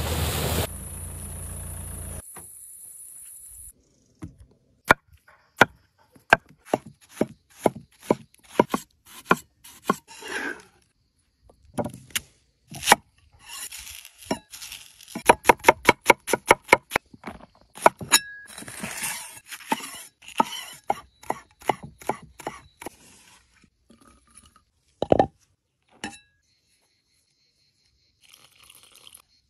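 A vehicle splashing through a shallow river for the first couple of seconds. Then a large cleaver-style knife cutting and chopping an onion on a wooden board: many sharp chops, with a fast, even run of them about halfway through. There is one heavier low thump near the end.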